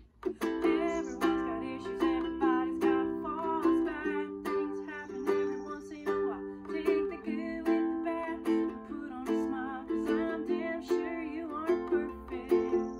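Ukulele strummed in a steady rhythm, chords of a simple pop song in the key of C, about three to four strums a second, after a very short break right at the start.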